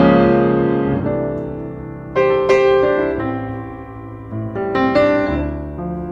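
Piano music: slow chords struck every two seconds or so, each left to ring and fade.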